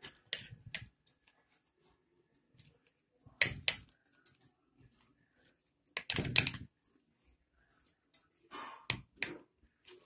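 A metal spoon clinking and scraping against a ceramic plate and small bowls in light, irregular knocks, with two louder clatters about three and a half and six seconds in.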